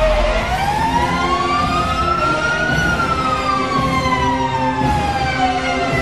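Hockey arena goal siren wailing slowly: its pitch rises for about two and a half seconds, falls for about three and a half, and starts climbing again near the end. Music plays underneath.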